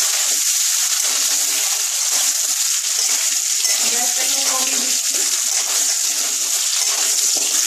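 Potato pieces sizzling in hot mustard oil in an aluminium kadai, a steady high hiss, while a spatula turns them in the pan.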